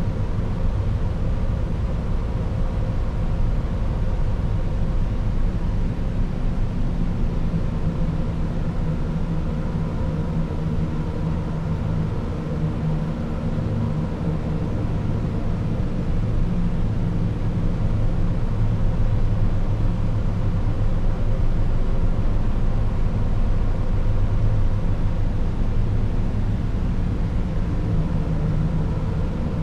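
Red noise from a software modular synthesizer, passed through a resonator, granular texture processing, spectral scanning and reverb. It is a steady, low, dark noise wash with faint held resonant pitches, and the loudness swells and sinks only slightly.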